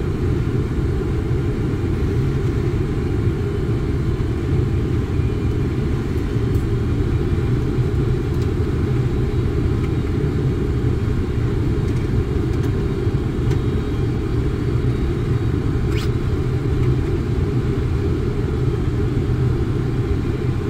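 Steady low rumble of flight-deck noise in a Boeing 747-400 on approach, with one faint click about 16 seconds in.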